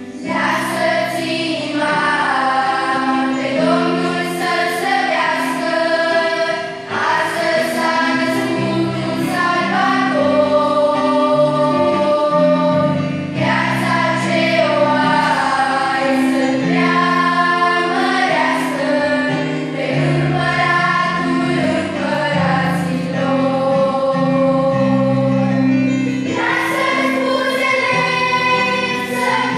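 Mixed youth choir of boys and girls singing a Christmas song in parts, several voices sustaining chords that shift every second or two.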